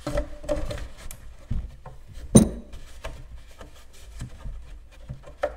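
A metal pipe axle being pushed and worked through drilled holes in a plastic milk crate: scattered knocks and scraping clicks. About two and a half seconds in comes one sharp clank that rings briefly.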